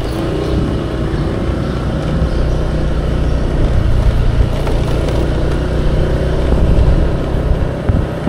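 Engine and road noise from a moving motor vehicle: a steady low rumble while riding, with a faint higher tone in the first second or so.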